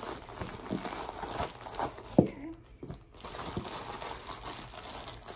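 A heavily taped mail package being torn open: packaging crinkling and tape ripping in irregular crackles, with one sharp snap about two seconds in.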